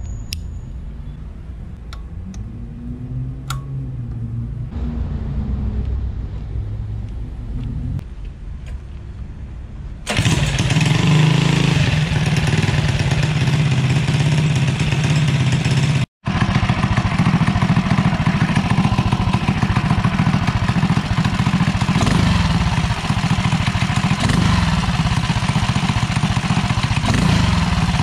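Predator 212 single-cylinder four-stroke engine on a drift trike running through a Mikuni VM22 carburettor on a 100 main jet. It is quieter at first with some rises and falls in pitch, then much louder from about ten seconds in, with a brief gap near sixteen seconds. Under more throttle it bogs: the main jet is too small for the engine.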